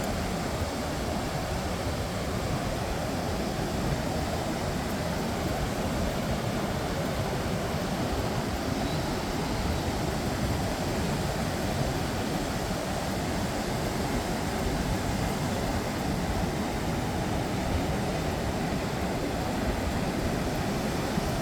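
Steady rushing noise of ocean surf mixed with wind buffeting the microphone, with no single sound standing out.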